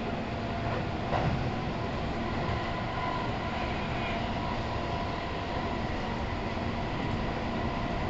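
Keihan 3000 series electric train heard from inside the car, running steadily: an even rumble of wheels on rail with faint steady motor tones and a single knock about a second in.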